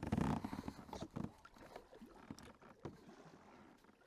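Kayak being paddled from the seat: paddle strokes and water splashes, with irregular knocks and clatter against the plastic hull. Loudest in the first second or so, then sparser and fainter.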